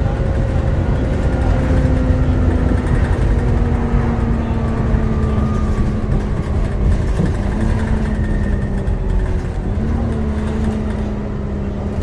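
Volvo B7TL bus engine and drivetrain heard from inside the passenger saloon while under way: a constant low rumble with a whine, the 'hoover' sound, that slowly falls in pitch as the bus slows, then steps back up about ten seconds in.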